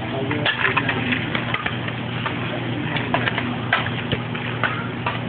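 Metal spatula clicking and scraping against a steel teppanyaki griddle as food is worked on it, in quick irregular strikes over a steady low hum.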